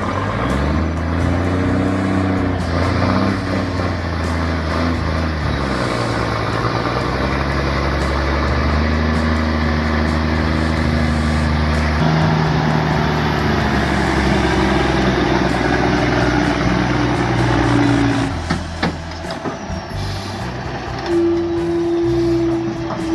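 Heavy truck engine running under load, with background music.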